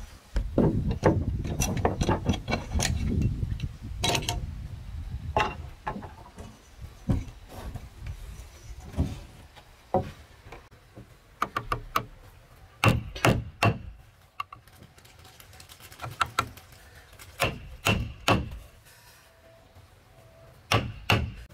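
Wood chisel struck with a hammer, chopping out a mortise in a timber beam: sharp knocks in irregular clusters. A low rumble fills the first few seconds.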